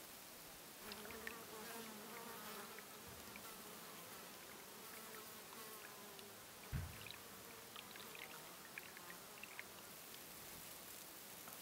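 A flying insect buzzing close by, a wavering hum that fades out about halfway through, over a faint hiss. A single low thump a little past the middle.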